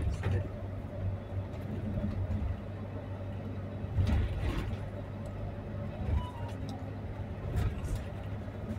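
Steady low engine and road drone heard from inside a moving bus's upper deck, with a few brief rattles or knocks about four seconds in and again near the end.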